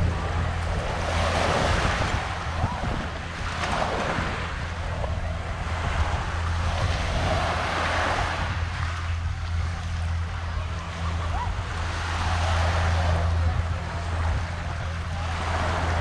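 Small surf waves washing up on a beach, one swell of wash every few seconds, over a steady low hum.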